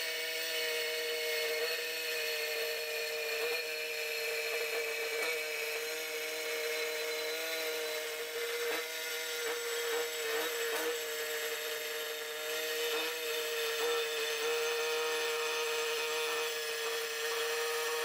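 Hand hacksaw cutting through aluminum angle stock clamped in a bench vise, with a steady pitched hum running under the strokes.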